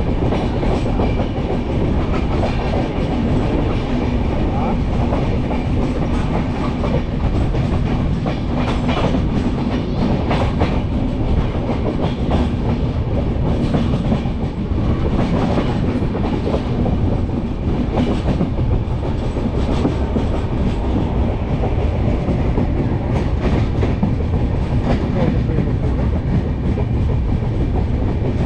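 Passenger train running at speed: a steady rumble and rush with the wheels clattering over the rail joints.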